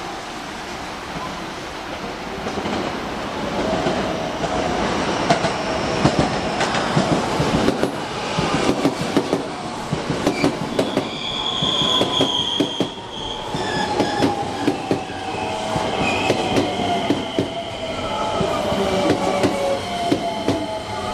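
A train's wheels running over rail joints: a dense, rapid clatter of knocks with high wheel squeal. In the second half a whine slowly falls in pitch.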